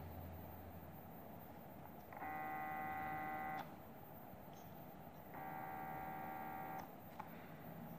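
Nanotec stepper motors of a homemade telescope mount drive, run twice from a hand controller: each run is a steady electronic whine of several pitches lasting about a second and a half, starting and stopping abruptly. Faint clicks fall between the runs.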